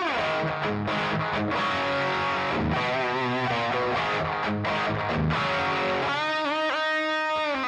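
Distorted electric guitar played through a cranked Marshall DSL20C all-valve combo and attenuated by a Universal Audio OX Amp Top Box: a lead line with string bends and vibrato, ending on a held bent note that stops at the end.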